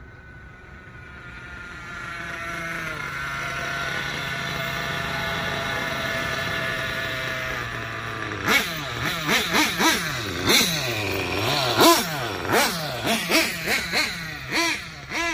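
Small nitro engine of a 1/8-scale Kyosho Inferno GT on-road RC car running at high revs on a top-speed run, a steady high engine note that grows louder over the first few seconds. About halfway through it changes to a quick series of short throttle blips, about two a second, each rising and falling in pitch.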